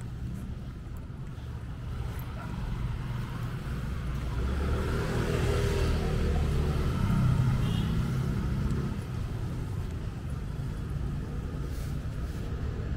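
A motor vehicle passing on the street: a low engine rumble that builds over a few seconds, is loudest around the middle and then fades, over a steady background of traffic rumble.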